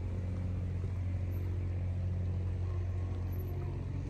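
Steady low rumble of road traffic with a constant hum.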